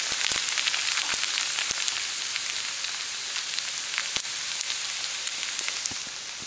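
Char kway teow (flat rice noodles with bean sprouts and shrimp) sizzling in a hot wok: a steady hiss with scattered pops and crackles that grows a little quieter toward the end.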